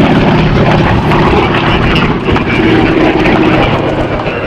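Radial engine of a WWII Japanese warbird replica droning steadily in flight, its pitch rising slightly past the middle.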